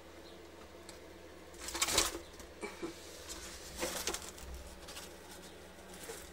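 Two short bursts of rustling and scraping, about two seconds apart, as leaves are brushed and the phone is handled while it is pushed through the enclosure plants. A few light clicks fall between them, over a faint steady low hum.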